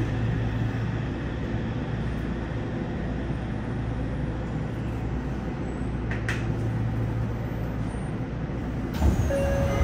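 Cabin running noise of a Yokohama Municipal Subway 3000R train with Mitsubishi IGBT-VVVF drive, slowing into the station: a steady low rumble of wheels and running gear, with a brief click about six seconds in. A sudden louder burst with a short steady tone comes about nine seconds in, near the stop.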